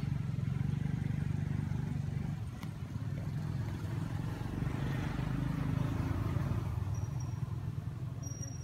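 Low, steady engine rumble, with a wider swell about four to six seconds in, as of a vehicle passing.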